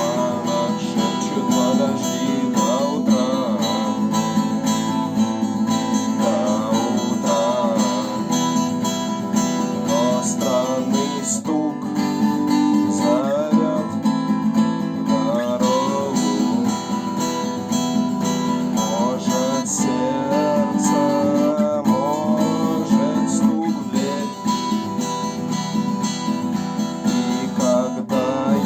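Acoustic guitar strummed steadily in a continuous chord pattern, with a wavering melody line over it.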